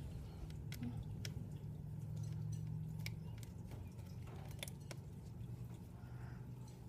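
Faint, sparse clicks and light taps of small parts being handled while working on a laptop, over a low steady hum.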